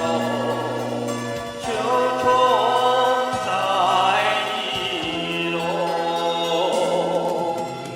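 Slow music: a melody with heavy vibrato carried over long held low notes.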